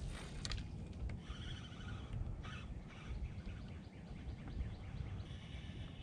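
Quiet outdoor ambience: a low steady rumble with birds chirping in short, repeated phrases.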